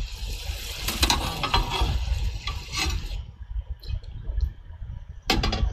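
A long metal ladle scraping and stirring chunks of goat meat frying in a huge wide pan, with sizzling, for about three seconds. Then it goes quieter, with a short burst of clatter near the end.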